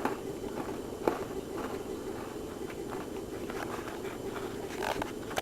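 Steady low background hum with a few faint, scattered clicks and knocks, one slightly louder about a second in.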